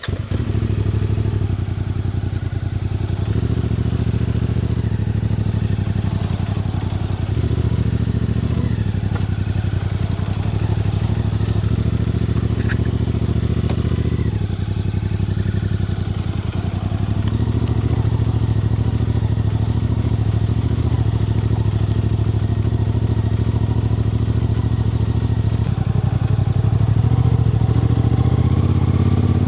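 A motor vehicle engine, motorcycle-like, running steadily under way. Its pitch steps up and down several times, as with throttle changes or gear shifts. It starts abruptly loud right at the beginning.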